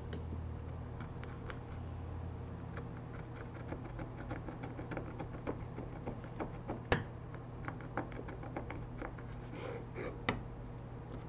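Light, irregular clicks and ticks of a small hand tool working on a smartphone's parts, with a sharper click about seven seconds in and another about ten seconds in, over a steady low hum.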